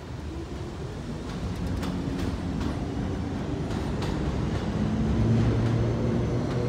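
Elevated subway trains: an R46 train pulling out, its wheels clicking over rail joints. From about halfway, a second train, an R160, comes in on the other track, and its rumble and low steady hum grow louder.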